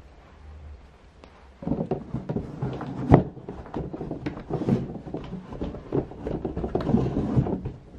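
Hands handling a cardboard box fitted with a plastic pet door: a busy run of knocks, taps and rustles of cardboard and plastic that starts about a second and a half in, with one sharp knock a little after three seconds.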